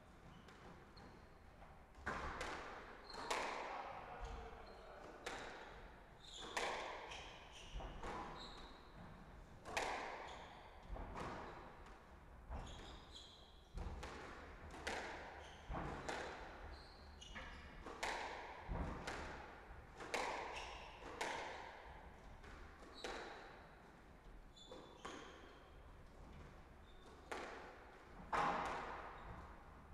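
Squash rally: the ball cracking off rackets and the court walls in sharp, echoing hits about every second or so, at an irregular pace.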